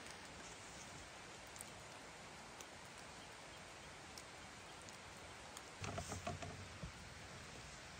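Light rain falling steadily as a faint, even hiss, with a few single drops ticking. About six seconds in, a brief cluster of soft knocks and rustling.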